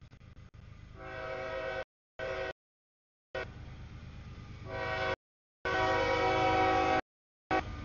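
CSX freight locomotive's multi-chime air horn sounding a series of blasts for a grade crossing as the train approaches, over the low rumble of the train. The longest and loudest blast comes about six seconds in, with shorter blasts near two seconds in and at the end.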